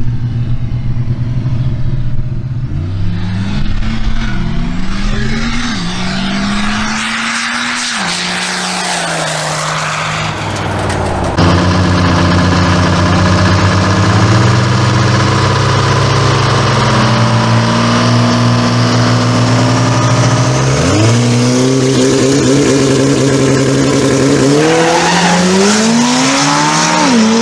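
Diesel pickup engines at full throttle, climbing in pitch as the trucks pull away and then fading. After a cut, a Cummins diesel Silverado and a built turbo 2.0L DSM hold steady revs on the line. About 21 s in they launch, engines rising sharply in pitch through the gears, with a shift near the end.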